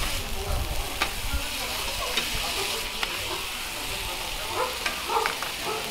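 Pork, bean sprouts and green onions sizzling steadily on a flat-top steel griddle while two metal spatula scrapers toss them. Sharp clicks and scrapes of metal on the griddle come every second or so.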